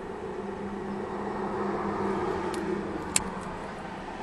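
A vehicle's hum, heard from inside a car cab, swells and then eases. About three seconds in there is a single sharp click from a small cigar cutter snipping a cigar.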